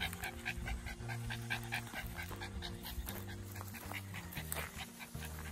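Dog panting quickly and steadily, about four or five breaths a second.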